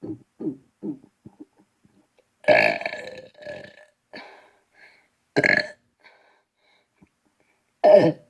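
A man burping: a string of short, low burps in the first second and a half, then a long, loud burp about two and a half seconds in, and two more loud burps about five and a half seconds in and near the end.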